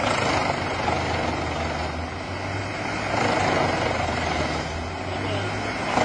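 Large trailer-mounted wood chipper and the tractor working its loading crane, a steady engine drone underneath, with the noise swelling louder about halfway through as pine logs feed into the chipper.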